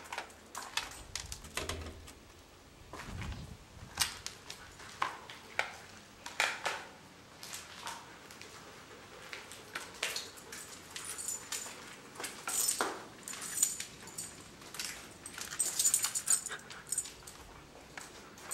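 Irregular footsteps scuffing and crunching on a debris-strewn floor, with scattered clicks and scrapes.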